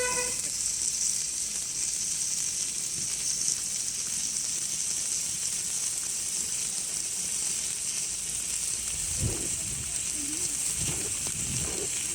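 Pandafireworks PSE5103 'Freedom's Wings' ground fountain firework burning, a steady high hiss of spraying sparks.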